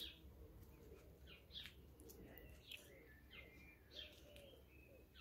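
Faint outdoor birdsong: small birds giving scattered short, high chirps, with no other sound standing out.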